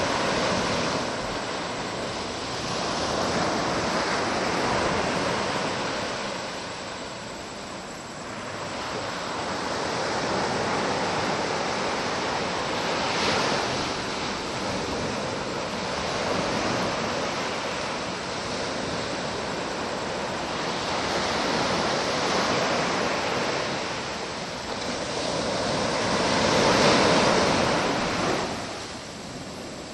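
Ocean surf breaking: a steady wash of noise that swells and eases every several seconds.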